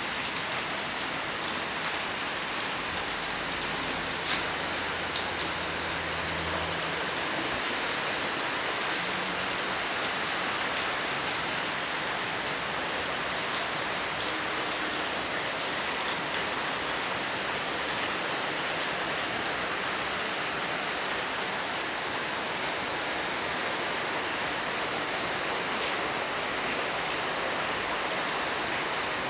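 A steady, even hiss like rain, with a faint low hum during the first seven seconds and a couple of faint clicks about four and five seconds in.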